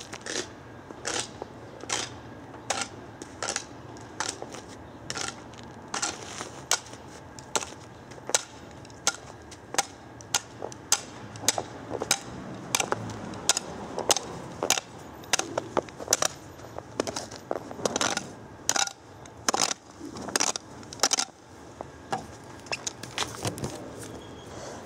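A steady run of sharp, irregular clicks and crunches, about one or two a second.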